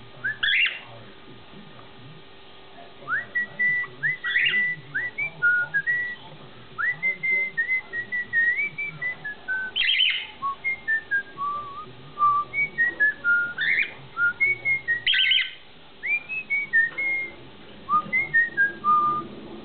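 Male pet cockatiel whistling its song: a long string of short whistled notes that slide up and down, with a few harsher chirps mixed in. It pauses briefly near the start and again toward the end.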